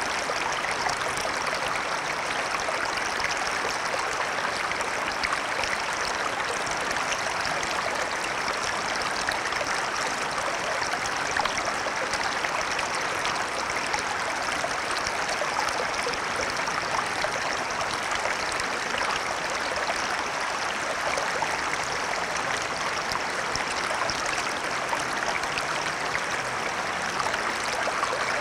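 Shallow small stream: water running and babbling steadily over the streambed.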